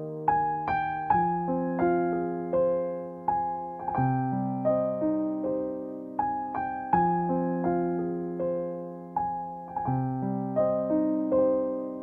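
Slow, gentle piano music: single melody notes struck about once or twice a second and left to die away, over soft lower chords that change every few seconds.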